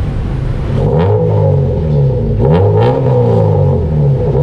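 Honda Civic VTi engine revved in quick blips through its new aftermarket headers, the pitch rising and falling several times from about a second in after a steadier start.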